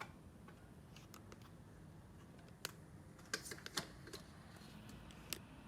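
A few faint, sharp clicks and taps from handling small wire connectors and tools: one a little before the middle, a quick cluster just after it, and one more near the end, over a faint low hum.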